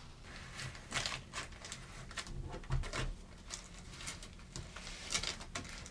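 Transfer tape being slowly peeled off vinyl wall lettering and crinkled in the hands: irregular soft crackles and rustles.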